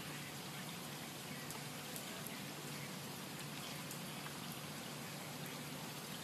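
Steady rain falling on floodwater, with a few sharp ticks of single drops.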